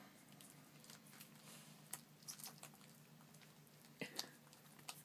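Litter of 12-day-old chocolate Labrador puppies nursing, making faint wet smacking and sucking sounds: scattered short smacks, a few louder about two seconds in and again about four seconds in, over a low steady hum.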